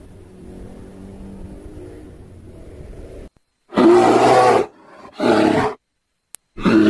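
Hippopotamus calls: after a low steady rumble, three loud hoarse calls about three seconds in, each around a second long, the last running on.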